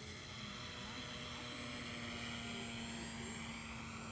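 Electric motor and propeller of a HobbyKing Boeing P-26 Peashooter RC foam model plane whirring as it comes in low on a landing approach, slowly growing louder, its pitch bending slightly as it passes.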